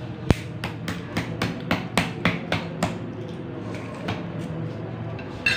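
Balut eggshell being tapped to crack it open: about ten quick, sharp taps at roughly four a second, then a couple of single taps later on.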